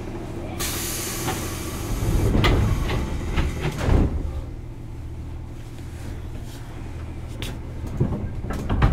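Inside a JR East 205 series commuter car: a burst of air hiss about half a second in, then a rumble and two heavy thuds around two and four seconds, the air-operated sliding doors working, over the steady low hum of the train's equipment.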